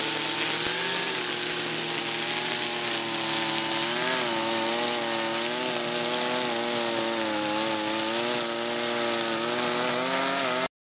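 Husqvarna 323R brushcutter's two-stroke engine running under load as its spinning head cuts through dense dandelions and couch grass, the engine pitch wavering up and down as the load changes. It cuts off abruptly near the end.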